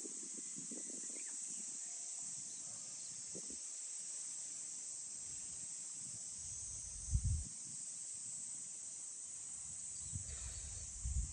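A steady, high-pitched chorus of insects, with two short low rumbles breaking in, about seven seconds in and again near the end.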